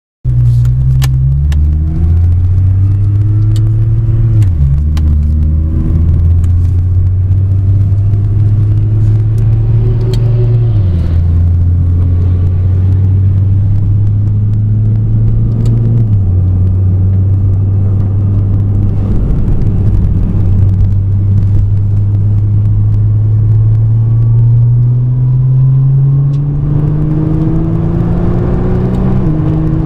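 Nissan GT-R R35's twin-turbo V6 through a NISMO titanium exhaust, heard from inside the cabin. It pulls up through the gears: the note climbs steadily in each gear and drops at each upshift, about four times. The sound cuts in suddenly at the start.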